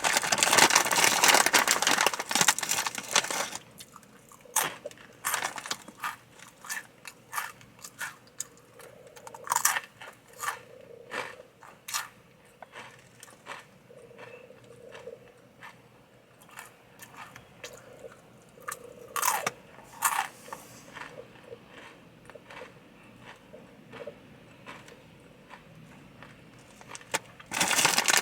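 Takis rolled tortilla chips crunching as a person bites and chews them, with many separate sharp crunches. There is a longer, louder stretch of dense crackling at the start and again near the end.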